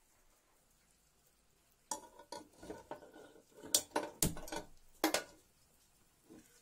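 Empty metal cooking pot being set onto a gas stove's burner grate: about two seconds in, a run of metal clanks and scrapes with a short ring, loudest a couple of seconds later, then dying away.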